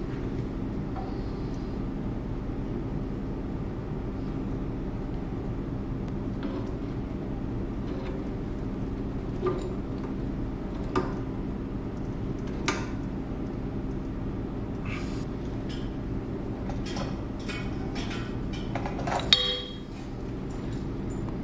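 Metal clinks and taps of a pipe wrench and threaded fittings as the air line is refitted to a sprinkler dry-system air compressor: single clinks a second or two apart, then a quicker run of them, the loudest near the end. A steady hum runs underneath.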